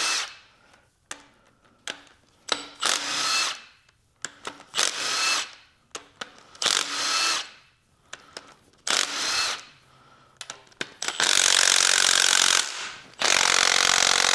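Handheld power tool spinning in short bursts, about five brief runs and then two longer, louder runs near the end, as it backs out the intake manifold bolts on a Ford 302 V8. Light clicks of socket and metal come between the runs.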